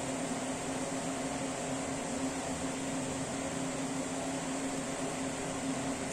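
Steady mechanical hum: a constant low tone over an even hiss, like a fan or air conditioner running, unchanging throughout.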